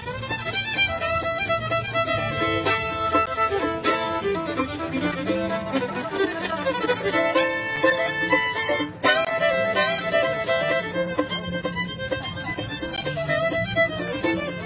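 Fiddle played fast, a rapid, unbroken run of bowed notes in a bluegrass tune.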